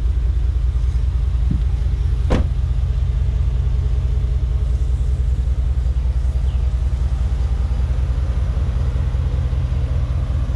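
2012 GMC Sierra 2500HD's 6.0L Vortec gas V8 idling with a steady low rumble. A single sharp click about two seconds in.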